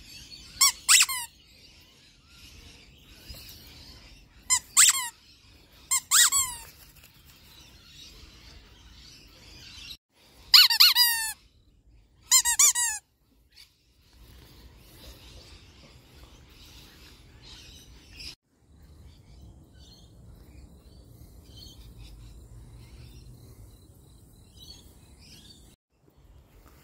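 Squeaky rubber soccer-ball dog toy squeezed by hand, giving a series of short, high squeaks that fall in pitch, often in quick pairs, about five times in the first half.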